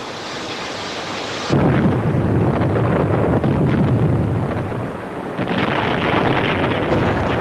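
Rock blasting: a hiss, then a sudden explosion about a second and a half in that runs on as a long rumble, with a second blast about five and a half seconds in.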